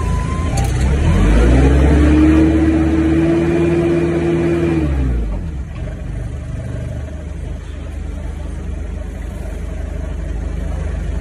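The vehicle's motor, heard from inside the cab, revs up about a second in, holds a steady higher pitch for about three seconds, then drops back to a lower steady running sound at about five seconds.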